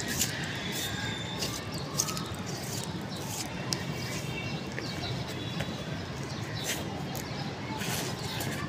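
Steady outdoor background noise with small birds chirping faintly now and then and a few soft clicks.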